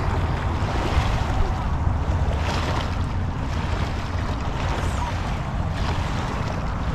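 Wind buffeting the microphone with a steady low rumble, over small bay waves washing against a concrete shoreline revetment.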